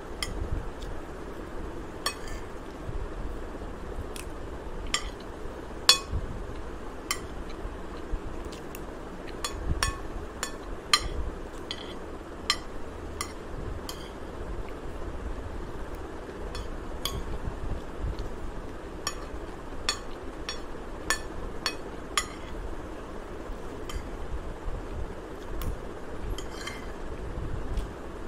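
Metal spoon clinking and scraping against a ceramic plate as rice is scooped up: many short, sharp clinks at an uneven pace, over a steady low background noise.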